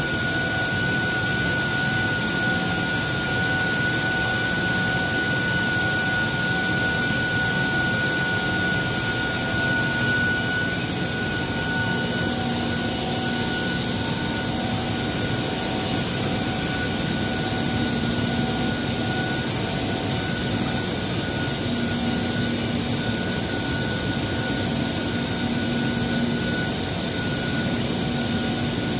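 Steady running noise of an industrial heat exchanger plant: a continuous rushing hiss with two steady high-pitched whines. From about ten seconds in, a low hum comes and goes.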